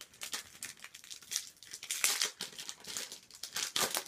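Trading-card booster pack wrapper crinkling in rapid, irregular rustles as it is worked and torn open, loudest about two seconds in and again near the end.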